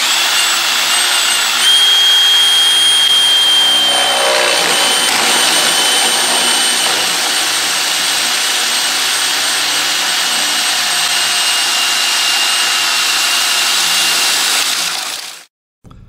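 Craftsman cordless drill with a hole saw cutting into PVC pipe: a steady motor whine that steps up in pitch about two seconds in, then sags slowly as the saw bites, and stops abruptly near the end.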